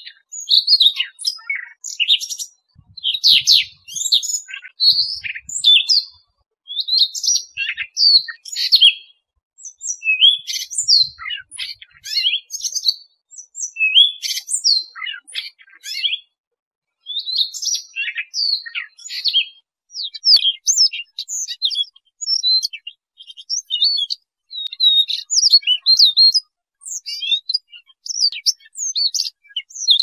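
Siberian rubythroat singing: a long, high-pitched run of quick, varied warbled phrases, each a second or two long, broken by brief pauses.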